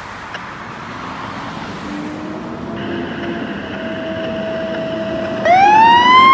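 Fire engine pulling out of its station with its engine running. About five seconds in, its siren starts and winds up loudly, rising in pitch.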